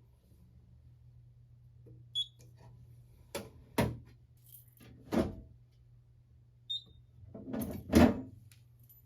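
Scattered clicks and knocks of hands resetting a Simplex 4251-21 pull station and fire alarm panels, about half a dozen, the loudest cluster near the end, over a steady low hum.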